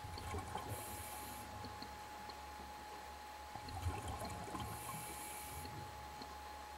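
A scuba diver breathing through a regulator, heard underwater: two breaths a few seconds apart, each a low bubbling rumble with a short hiss. A faint steady high tone runs underneath.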